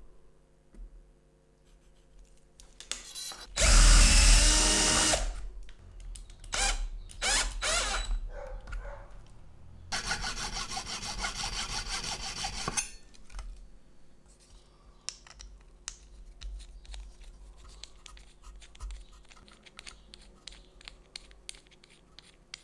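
A power drill running in one loud burst of about a second and a half, then in several shorter bursts. A junior hacksaw then saws steadily for about three seconds, followed by faint clicks of small parts being handled and fitted.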